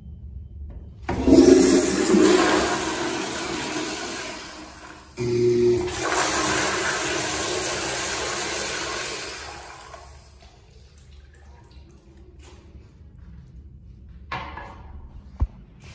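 Commercial flushometer-valve toilet (American Standard Madera bowl) flushing: a sudden loud rush of water about a second in, a brief break and a second surge about five seconds in, then the rush fades out around ten seconds in. A couple of short knocks follow near the end.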